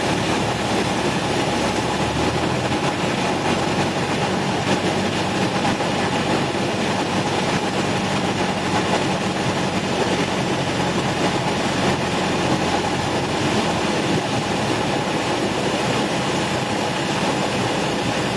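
Cessna 172's piston engine and propeller running steadily on final approach to landing, a dense continuous drone heard inside the cabin.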